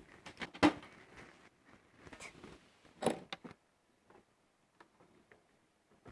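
A fibre-optic distribution box being handled: a few light knocks and clicks, the loudest about half a second in and about three seconds in, with soft rubbing between.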